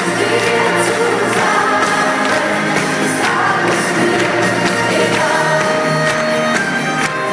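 Live concert music with singing, amplified through an arena sound system and heard from the audience seats.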